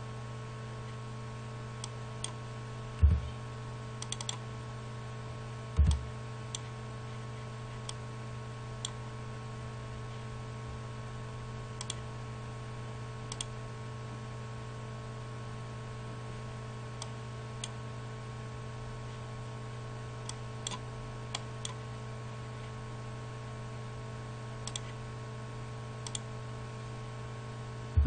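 Scattered computer mouse and keyboard clicks over a steady low electrical hum, with two dull low thumps about three and six seconds in.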